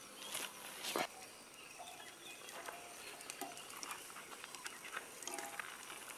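Faint outdoor ambience with scattered short animal calls. Two sharp knocks come about half a second and about a second in.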